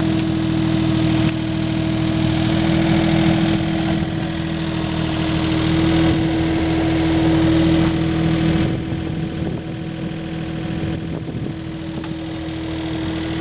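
Multione SL835 mini loader's engine running steadily while it powers the Uemme E24 backhoe attachment, with a steady whine over the engine. It eases and gets somewhat quieter about two-thirds of the way through.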